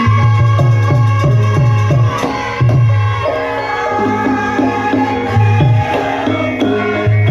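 Javanese gamelan music of the kind played for topeng and lengger dance: kendang hand-drum strokes in a steady rhythm, under pitched melodic patterns and a long held melodic line.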